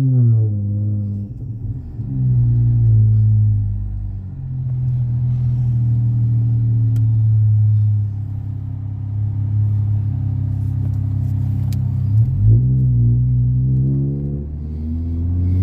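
Dodge Challenger's engine through a MagnaFlow Magnapack exhaust while driving: the pitch climbs and drops several times as it accelerates and shifts, with a steady cruising drone in the middle and another climb near the end.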